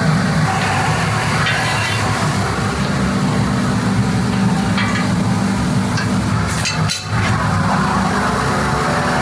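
Aluminium TIG welding arc, a steady sizzling crackle over a low buzz, with a brief break about seven seconds in.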